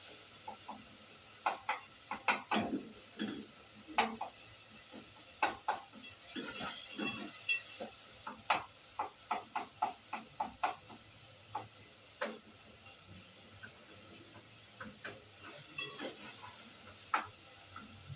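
Kitchen utensils and cookware clinking and knocking against pots and dishes: irregular sharp clatter in clusters, thinning out in the second half.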